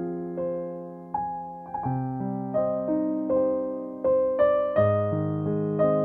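Slow, gentle background piano music: single notes and chords struck every half second or so, each ringing and fading away.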